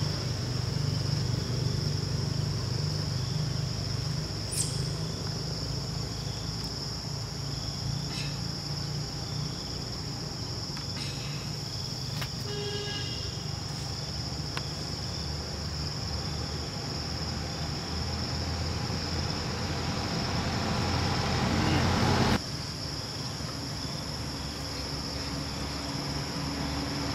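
Steady high drone of insects, with a low rumble underneath that swells and then stops abruptly some five seconds before the end. A brief high-pitched call sounds about halfway through.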